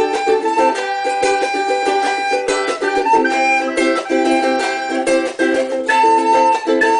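Music on a plucked string instrument of high range, such as a ukulele: chords strummed in a steady rhythm, with a higher held melody line above them.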